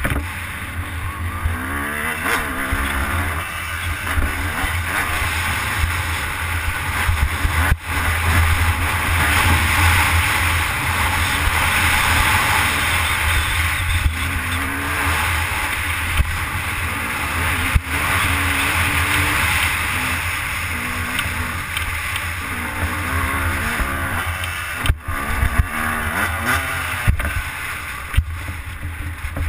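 Yamaha YZ250 two-stroke dirt bike engine under way, the revs rising and falling over and over as the bike is ridden, heard from the rider's helmet.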